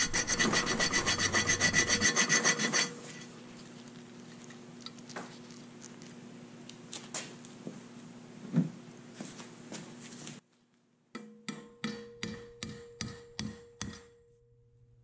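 A hand file rasping across the edge of a 1/8-inch steel plate held in a vise, in quick, even strokes for the first few seconds. A quieter stretch with a faint hum and a few light knocks follows, and near the end a run of hammer blows on the plate, about three a second.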